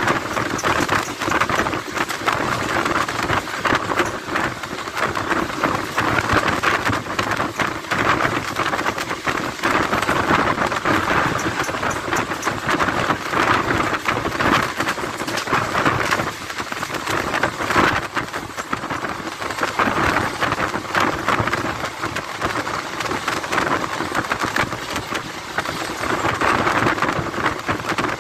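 Indian passenger train running at speed: a steady rushing of wind and wheels on the rails, with wind buffeting the microphone at the open coach doorway.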